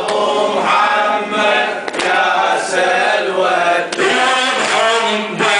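A man chanting a Shia elegy into a microphone, with other men's voices joining in. Sharp slaps land about every two seconds in time with the chant, as the men beat their chests.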